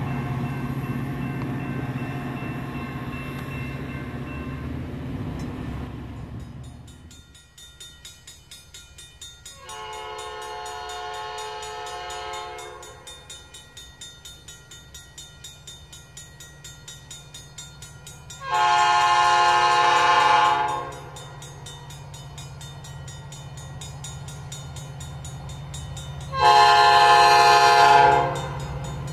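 Metra diesel locomotive running as it pulls its train past, its engine drone dropping away after about six seconds. Then an approaching Metra train sounds its multi-note air horn three times: a longer, fainter first blast, then two louder, shorter blasts.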